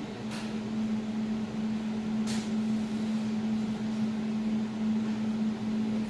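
Jewelry laser welding machine running while it warms up after the laser is activated, giving a steady hum with a constant low-mid tone. Two short, faint hisses come through, about half a second in and again just after two seconds.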